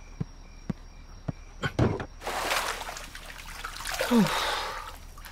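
A person getting into a bath: a few light clicks and a knock, then water splashing and sloshing in two swells, with a brief breathy vocal sound about four seconds in.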